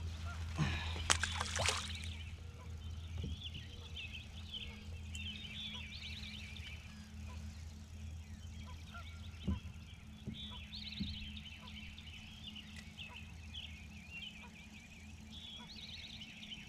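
Birds singing a busy run of chirps and warbles over a steady low hum, with a short flurry of knocks and rattles about a second in.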